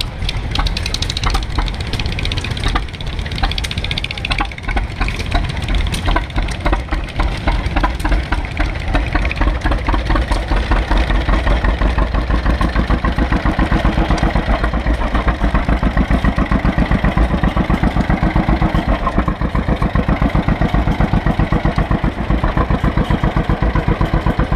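Two-cylinder John Deere tractor engine idling with an even popping beat, several pops a second, growing louder and steadier about halfway through.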